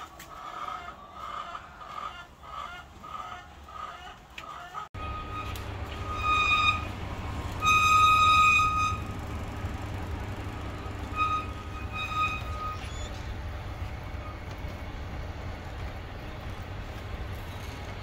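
Plastic egg trays clattering as they are handled and stacked, with chickens clucking. After about five seconds a steady low hum of incubator machinery starts, over which a chicken gives loud held calls near the middle, the longest about a second, and two shorter ones later.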